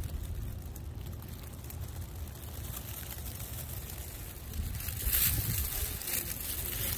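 Wind buffeting a phone microphone, a steady low rumble, with a brief louder hiss about five seconds in.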